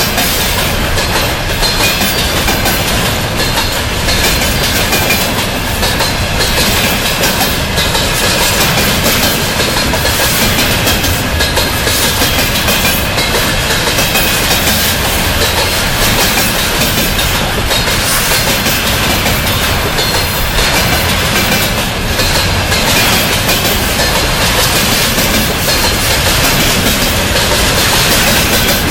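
Loaded container flatcars of a freight train rolling past close by: a loud, steady rumble of steel wheels on rail, with repeated clickety-clack as the wheelsets cross the rail joints.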